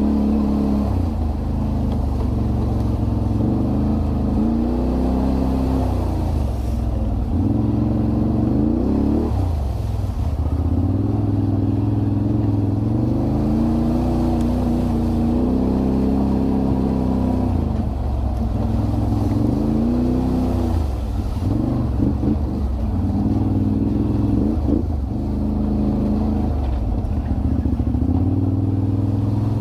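Can-Am Renegade 1000 ATV's V-twin engine running under a rider, revving up and easing off over and over, its pitch rising and falling every few seconds.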